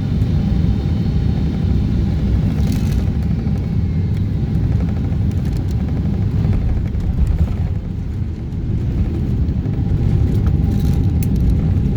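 Inside the cabin of a Boeing 777-200ER airliner during its landing: a loud, steady low rumble of engine and airflow noise with a faint steady hum, and a few light clicks or rattles about 3, 7 and 11 seconds in.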